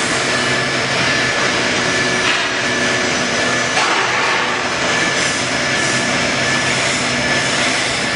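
A hairline finishing machine runs steadily, its abrasive head working a metal workpiece wet under coolant. The sound is a loud, even rushing noise with a faint steady whine.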